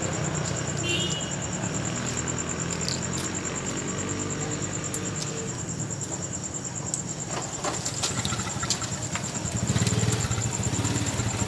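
Street traffic: motor vehicle engines running close by as a steady low hum that grows louder near the end, with a few light clicks and a faint steady high-pitched whine throughout.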